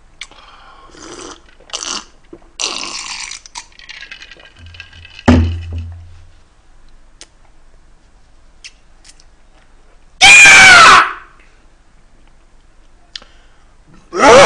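A man's loud wordless vocal reactions to a sour fermented black vinegar drink: a strained cry of about a second, ten seconds in, and a shorter one at the very end. Quiet sipping sounds come first, and there is a thump about five seconds in.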